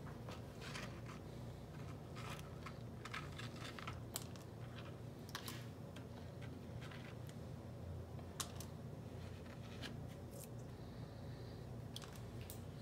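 Plastic gold pan being dipped and swirled in a tub of water: small irregular splashes, drips and gritty clicks as blonde sand is washed off the black-sand concentrate, over a low steady hum.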